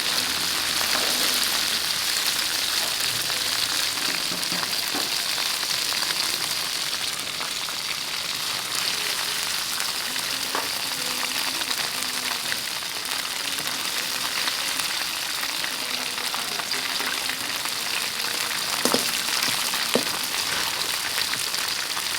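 Rice-flour-coated shrimp deep-frying in hot oil, giving a steady sizzle, with a few light clicks near the end.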